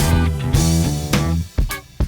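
Background music: electric guitar and bass over drums, with a short drop about one and a half seconds in.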